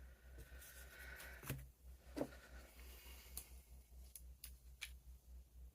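Faint, scattered clicks and light taps from a pocket knife being handled and turned over, about six in all, over a steady low hum.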